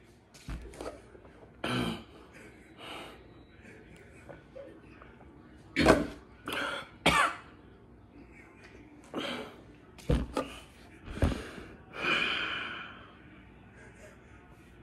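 A young man coughing and clearing his throat in a dozen or so short, sharp bursts, with one longer, drawn-out one a little before the end. His mouth and throat are burning from an extremely hot chilli chip, and milk has not eased it.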